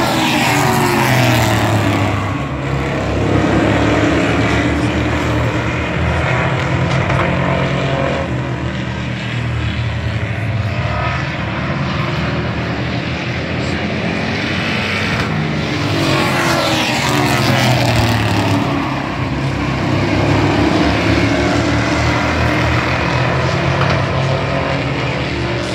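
Street stock race cars racing past the grandstand, the pack's engines running hard throughout. The sound swells each time cars go by, with the engine pitch falling as they pass, about a second in and again around sixteen to eighteen seconds in.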